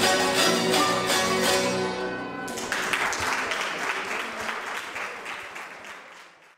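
Ensemble of zithers playing the last chords of a folk tune, which stop about two and a half seconds in; audience applause follows and fades out.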